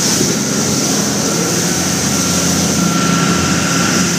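Motorboat underway at speed: steady engine drone mixed with water rushing past the hull and wind noise on the microphone.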